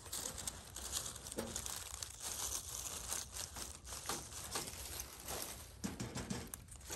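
Dry fallen leaves crackling and rustling as they are stepped on and a wire cage trap is shifted among them.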